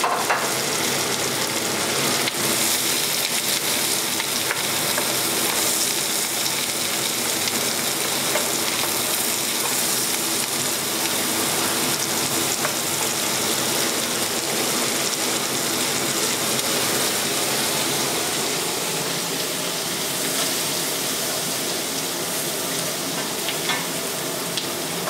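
Diced carrots, celery and parsley root sizzling steadily in fat in a stainless-steel pot, stirred now and then with a wooden spoon: the vegetable base being sautéed over the heat.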